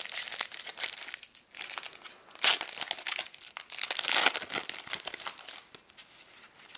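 Trading card booster pack wrapper crinkling and crackling as it is handled and torn open, with the loudest crackles about two and a half and four seconds in, then fading.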